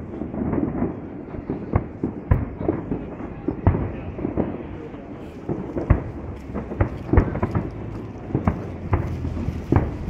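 Fireworks exploding overhead: a dozen or so sharp bangs at uneven intervals over a low continuous rumble.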